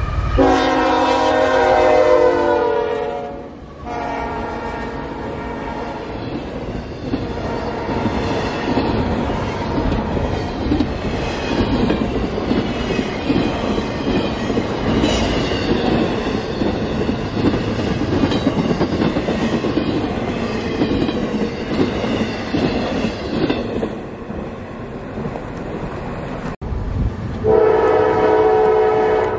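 A locomotive horn sounds for about three seconds, then an intermodal freight train rolls past, its wheels clattering steadily over the rails for about twenty seconds. Near the end a locomotive horn blows again.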